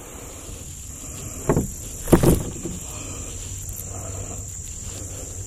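A steady high insect trill, with a few dull knocks about one and a half and two seconds in.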